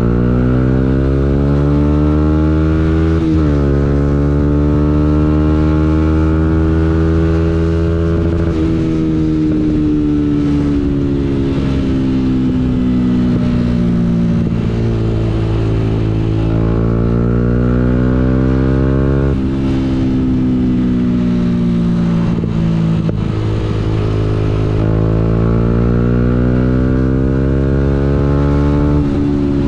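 Yamaha MT-125's single-cylinder four-stroke engine under way, heard from the rider's position. Its pitch climbs and sags slowly with the throttle and jumps abruptly several times at gear changes, over steady road and wind noise.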